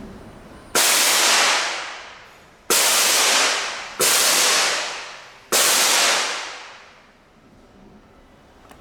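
CO2 jet machine's solenoid valve snapping open four times, each time letting out a short hissing blast of gas that starts abruptly and fades over about a second.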